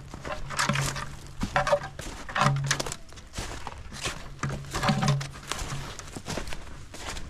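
Footsteps crunching through thin snow and dry leaves, about one step a second, with a low hum coming and going.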